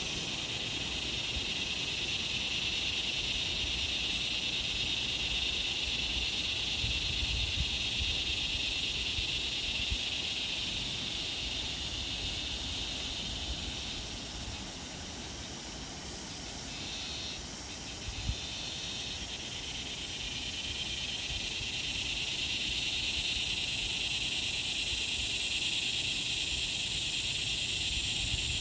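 Steady insect chorus: a continuous high-pitched drone that dips in the middle and swells again, with an even, rapid pulsing above it. A faint tap or two breaks through.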